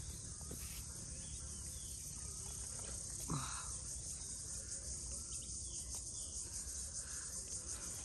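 Steady high-pitched insect buzz with a low rumble beneath it, and a brief sound falling in pitch about three seconds in.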